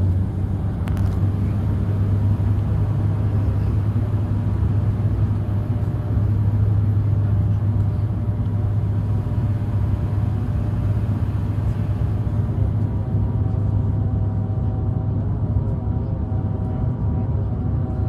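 Cabin drone of a Dash 8 turboprop airliner on approach: a steady low propeller hum, with higher whining tones joining in from about 13 seconds in.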